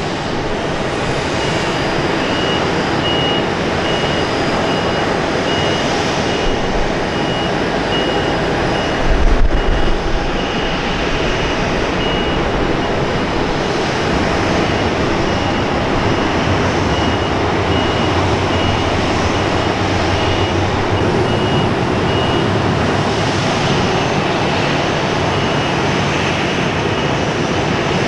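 Boeing 737-800's CFM56-7B jet engines running at a steady level. A high beep repeats a little more than once a second throughout, and there is a brief low thump about nine seconds in.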